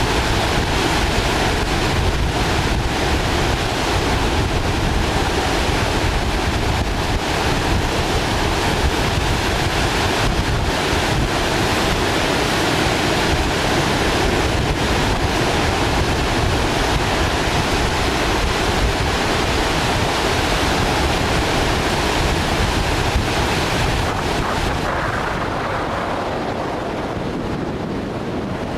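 Strong wind buffeting the microphone: a steady rushing noise with rough low-pitched gusts, easing off a little near the end.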